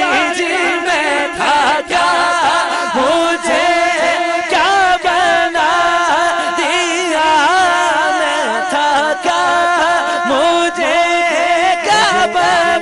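A man singing a naat, an Urdu/Punjabi devotional song, through a microphone and PA in a richly ornamented, wavering melody over a steady low drone.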